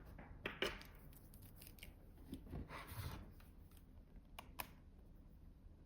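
Faint handling noises of a charging cable being moved and plugged into a charger's USB-C port: soft rubbing and a few sharp plastic clicks, two close together near the end.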